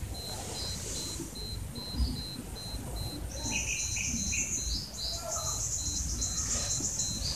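Insects chirping outdoors: a high, evenly pulsed chirp repeating steadily, with a higher, faster trill joining about halfway.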